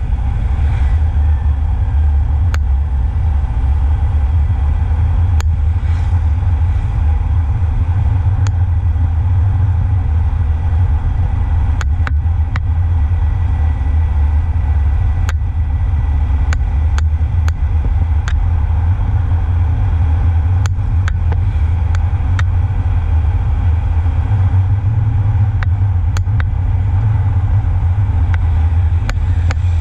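Motor scooter on the move, heard from a camera mounted on it: a loud, steady rumble of wind and road noise over the engine, with scattered sharp clicks.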